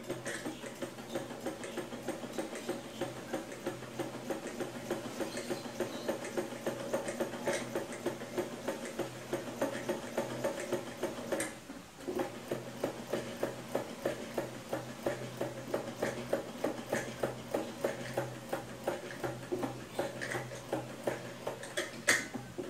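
Old hand-cranked Singer sewing machine running, its needle and shuttle mechanism clicking and clattering in a steady rhythm of about three beats a second. It stops briefly about halfway through, then picks up again, with a sharper click near the end.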